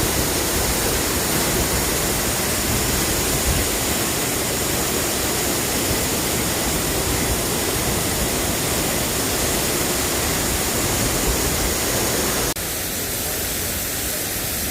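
Steady rushing roar of a large man-made waterfall, an even hiss of falling water that drops slightly in level abruptly near the end.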